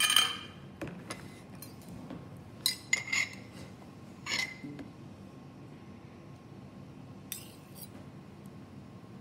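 A metal spoon clinking and scraping against a jar and a bowl while scooping out cream cheese. There are a few sharp clinks with a short ring: at the start, around three and four seconds in, and once more near the end.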